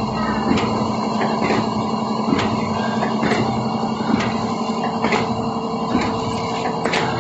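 Paste filling machine running, a steady mechanical hum with a sharp click or knock roughly once a second as it cycles through its filling strokes.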